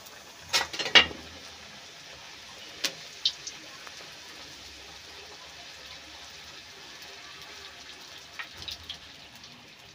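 Bhatura deep-frying in hot oil in a steel kadhai: a steady sizzle as the bread puffs up, with two loud clatters about a second in and a few lighter metal clicks from the slotted spoon later on.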